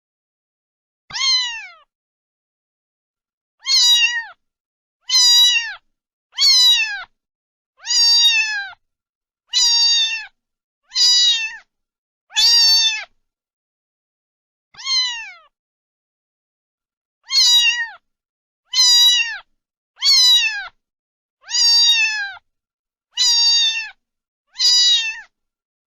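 Domestic cat meowing over and over: about fifteen short meows, each falling in pitch at the end, a second or so apart with dead silence between them and a brief longer pause midway.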